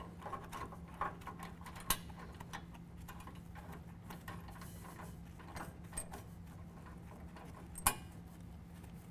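Light, irregular metallic clicks and taps of a washer, lock washer and nut being fitted by hand onto a bolt through a steel bumper bracket inside the truck frame, with a sharper knock about two seconds in and another near the end. A faint steady hum runs underneath.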